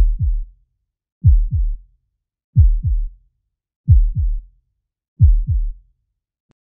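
Heartbeat sound effect: five slow double beats, lub-dub, about one and a third seconds apart, each a deep thud that drops in pitch, with silence between.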